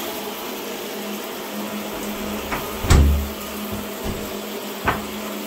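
Tap water running into a bathtub, a steady rushing. A thud about three seconds in and a smaller knock near the end.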